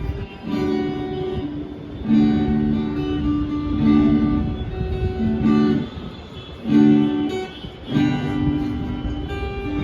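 Guitar strumming a run of chords, the chord changing every second or so.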